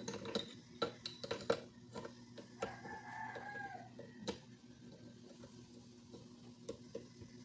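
Clicks and knocks of a metal scissor-arm microphone boom stand being handled and adjusted, thickest in the first second and a half, with another sharp click about four seconds in. A drawn-out animal call lasts about a second, about three seconds in, over a steady low hum.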